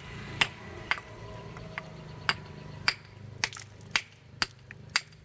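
A heavy knife blade chopping at a rough stone: about ten sharp clinks of metal striking rock, roughly two a second.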